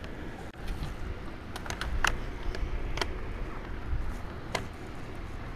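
A few sharp metallic clicks and knocks, the loudest about two, three and four and a half seconds in, from a ZipDee awning's arm hardware being handled and locked in place, over a low rumble.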